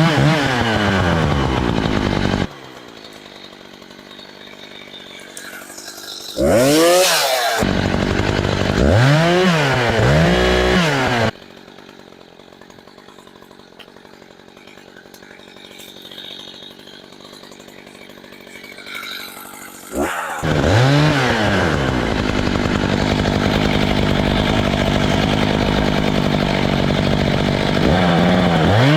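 Gas chainsaw revving up and down in repeated pulls of the throttle. There are three loud stretches: at the start, from about six and a half to eleven seconds in, and from about twenty seconds on. Between them it drops much quieter.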